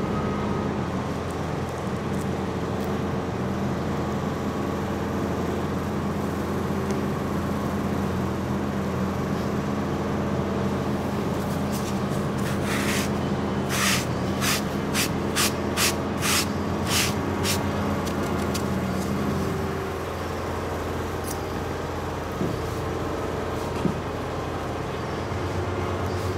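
Steady electrical hum of workshop equipment, with a run of about nine short hisses over some five seconds midway. Part of the hum cuts out about twenty seconds in.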